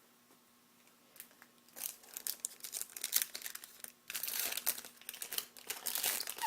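Foil wrapper of a 2010-11 SP Authentic hockey card pack being torn open and crinkled. Quiet for about two seconds, then quick crackling that gets louder after about four seconds in.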